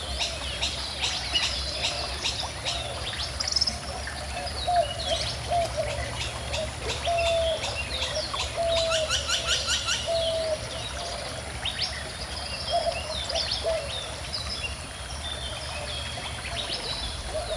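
Several birds chirping and singing together over the steady low rush of a gently flowing stream. Through the middle, one bird repeats a short, lower whistled note about once a second.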